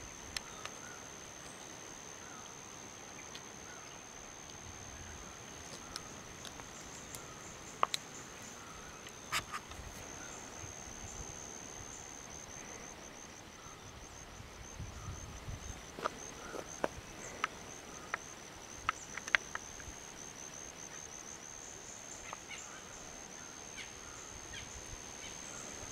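Countryside ambience: a steady high-pitched insect drone that pulses in stretches, with faint bird chirps and scattered sharp clicks, most of them in a cluster past the middle.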